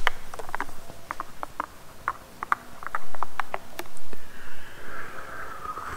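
A teaspoon stirring coffee in a mug, a string of light, irregular clinks against the cup. About four seconds in, a sip of hot coffee with a soft slurp.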